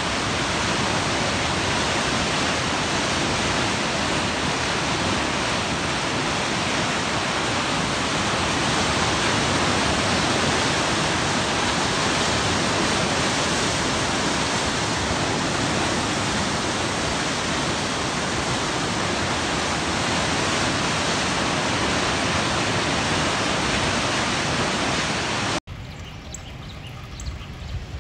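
Turbulent floodwater in a flash-flooded creek, a loud steady rush of rapids and standing waves. Near the end it cuts abruptly to a much quieter flow of water.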